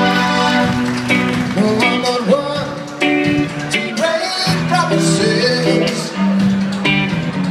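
A pop-rock band playing, with a singer over guitar, keys and drums.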